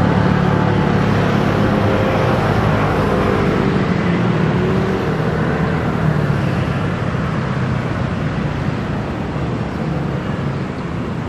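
Steady rumble of motor traffic, with a low engine hum that slowly fades.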